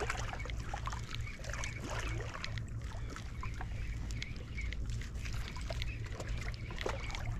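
Shoreline ambience: a steady low wind rumble on the microphone with water lapping at the seawall, scattered small clicks and a few faint bird calls.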